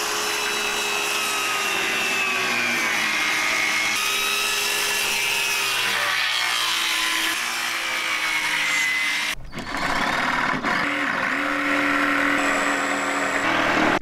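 Cordless circular saw cutting through a reclaimed wood board freehand, its motor whine dipping and recovering in pitch as the blade loads in the cut. It cuts out briefly about nine seconds in, then starts again and runs until it stops near the end.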